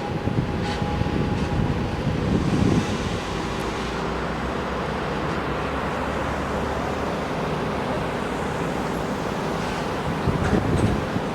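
Steady rumble of road traffic, with a faint steady hum under it and louder, rougher stretches about a second in and again near the end.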